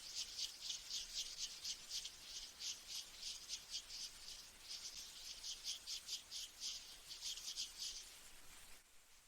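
High-pitched chirping in a fast, even series of about five to six chirps a second, coming in runs of a few seconds with short breaks and stopping near the end.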